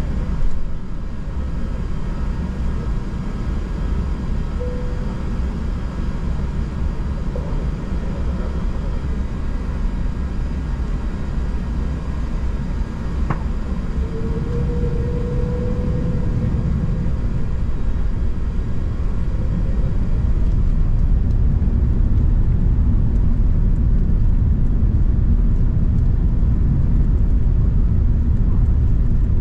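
Airbus A380 cabin rumble heard from the upper deck as the engines spool up for the takeoff roll, getting louder about two-thirds of the way in. A single faint click about halfway through.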